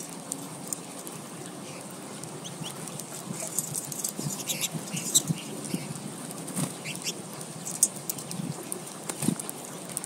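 Wing flutters and scattered taps and clicks of American goldfinches feeding at a tube seed feeder, with short high twitters. It gets busier after a few seconds.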